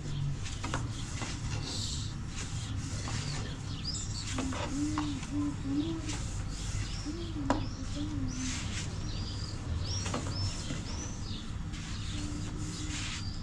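Birds calling: repeated short high chirps and a dove's low cooing, over a steady low hum. Light taps and clicks come now and then from a thin wooden rolling pin working flatbread dough on a wooden board.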